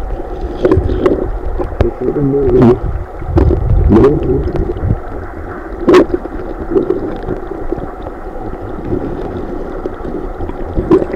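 Muffled underwater sound of a stream, heard by a submerged phone camera: gurgling and rushing water with a wavering low rumble, broken by sharp clicks and knocks, the loudest about six seconds in.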